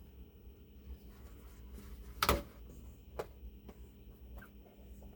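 Quiet handling of parts inside a battery case: faint rustling, with a sharp knock a little over two seconds in and a lighter one about a second later.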